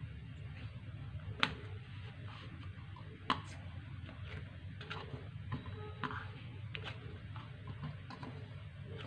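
A hand kneading luchi dough in a ceramic plate: irregular soft taps and knocks of dough and fingers against the plate, with two sharper knocks, one about a second and a half in and one about three seconds in. A steady low hum sits underneath.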